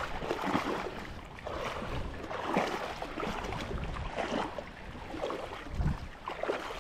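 Sea water sloshing and splashing around the legs of someone wading deep through the shallows, in irregular surges about once a second.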